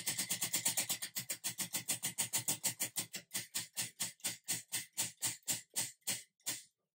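Prize wheel spinning, its pointer flapper clicking against the pegs: quick clicks that slow steadily as the wheel runs down and comes to a stop near the end.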